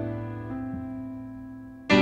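Background piano music: a chord held and slowly fading, then a new chord struck loudly near the end.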